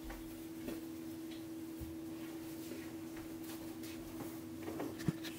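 Quiet room with a steady faint hum and a few soft knocks and handling clicks, the sharpest knock about five seconds in.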